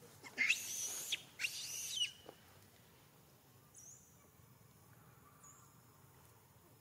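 Two shrill, harsh animal calls, each just under a second long, one right after the other, then two faint high chirps a few seconds later.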